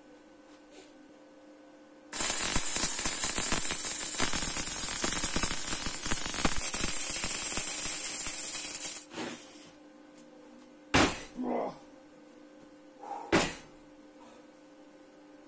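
Arc welding on steel: a dense, loud crackle and hiss that starts abruptly and runs for about seven seconds, one weld run. Two sharp knocks follow in the quieter stretch after it.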